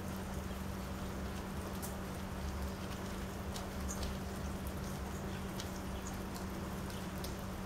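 Rain falling onto a wet wooden deck: a steady hiss with many scattered sharp ticks of single drops landing. A steady low hum runs underneath.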